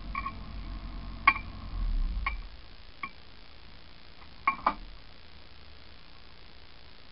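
Nissan Micra 1.3 engine idling, heard from inside the cabin, then stopping about two and a half seconds in. Several sharp metallic clicks come one by one, the loudest just over a second in and a close pair at about four and a half seconds.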